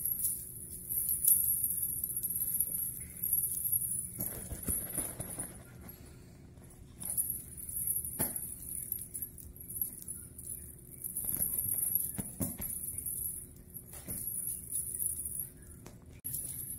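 Small bells jingling on and off, bright and high, over a faint steady hum.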